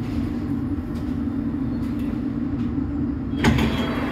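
London Underground S7 Stock train standing at the platform with a steady low hum from its equipment. About three and a half seconds in, the sliding doors open with a sudden loud release, followed by high steady tones.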